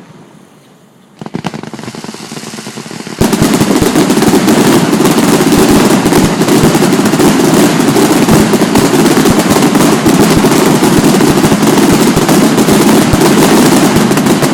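Fireworks: scattered crackling starts about a second in, then about three seconds in a dense, loud barrage of rapid-fire bangs and crackles begins and carries on without a break.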